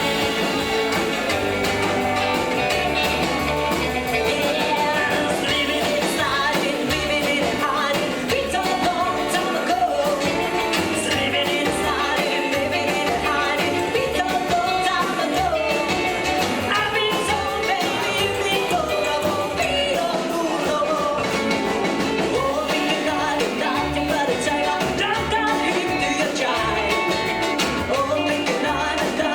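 Live rockabilly band playing an upbeat song, a woman singing lead over a steady, walking bass line.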